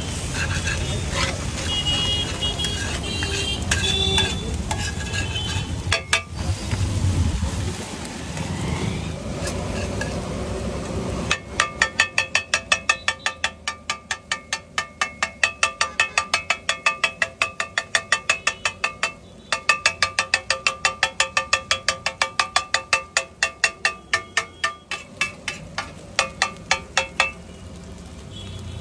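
A steel spatula scrapes and stirs egg bhurji on a large iron griddle, then about eleven seconds in it starts chopping the egg against the griddle. The chopping is a fast run of ringing metal strikes, about four a second, with a brief pause midway, and it stops shortly before the end.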